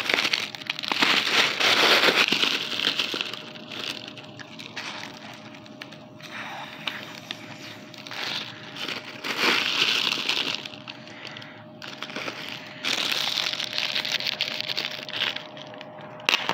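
Clear plastic packaging crinkling and crackling as it is handled, in several bursts with a few sharp snaps between them.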